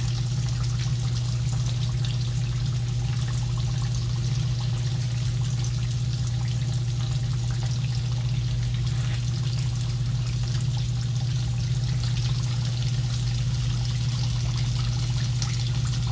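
Corn tortilla tacos frying in a shallow skillet of hot oil: a steady sizzle with fine crackling, over a constant low hum.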